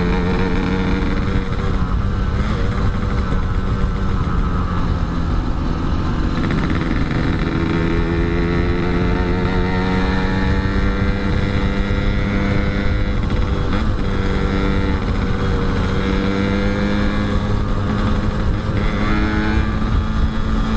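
Yamaha RX-King's two-stroke single-cylinder engine running steadily while being ridden, its pitch drifting gently up and down with the throttle.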